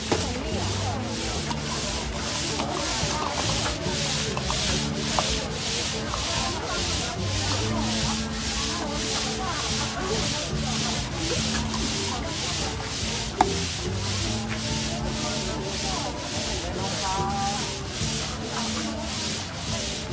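Thai-style slushie machine turning soda bottles through crushed ice, a rhythmic grinding scrape about twice a second.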